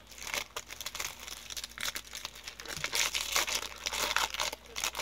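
Foil Pop-Tarts pouch crinkling and crackling as it is pulled open by hand, a fast irregular run of crackles.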